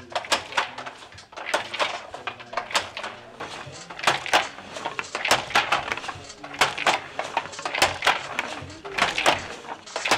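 Wooden handloom being worked: irregular clacking and knocking of its frames and beater, in quick clusters of sharp knocks.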